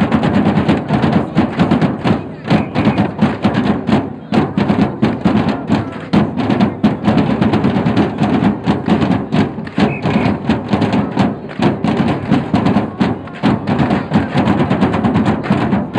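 Drums beating a steady, fast rhythm, with crowd voices mixed in.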